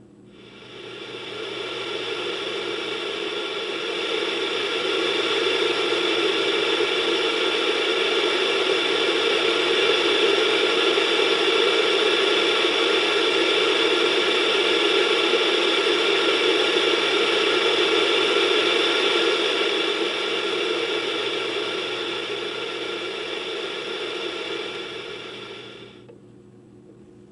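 Steady white-noise hiss used as a sound effect. It fades in over the first few seconds, holds steady, eases down near the end and then cuts off.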